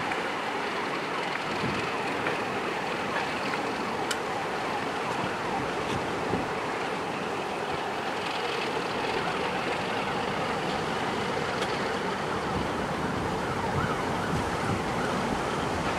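A heritage train of 3CIG coaches coupled to a Class 31 diesel locomotive running out of the station, a steady noise of the train under way with a few faint ticks.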